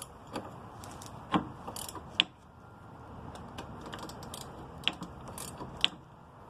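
Scattered sharp metallic clicks and clinks of hand tools, an 18mm ratcheting wrench and hex bit, working on a sway bar end link nut. The loudest clicks come a few at a time, irregularly.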